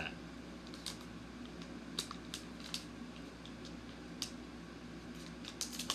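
Scattered light crinkles and clicks from a small plastic packet being handled and opened, over a faint steady hum.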